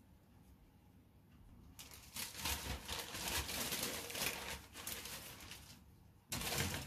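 Plastic model-kit sprues rustling and crinkling as they are handled, with many small clicks. It starts about two seconds in, dies away around six seconds and picks up again just before the end.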